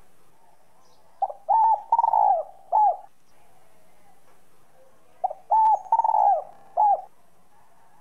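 Spotted dove cooing in its clear, whistle-like voice: two phrases of four notes each, about four seconds apart, the third note in each the longest.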